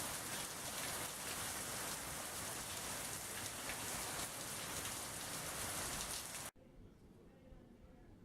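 Steady rain, an even hiss that cuts off suddenly about six and a half seconds in, leaving faint room tone.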